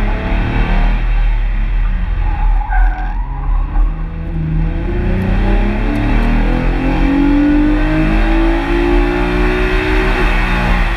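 Mazda MX-3's swapped 2.5-litre KL-DE V6 under hard acceleration on a time-attack run, its note climbing steadily for several seconds, then easing off near the end.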